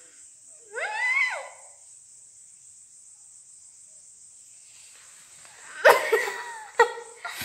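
A child's short, rising-then-falling squeal about a second in, over a steady high-pitched hiss, then children's voices and laughter near the end.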